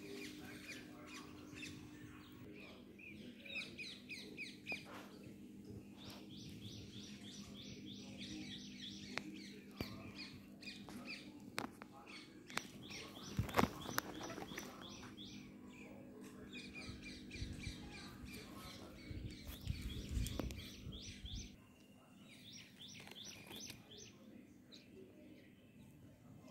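A small bird chirping in rapid trains of short, high notes, again and again, over a steady low hum. A few bumps and rustles come near the middle, the loudest about halfway through.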